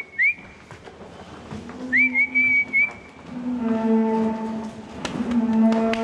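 Short whistled notes, each rising and then held, followed from about three seconds in by Holstein dairy cows mooing in two long, low calls.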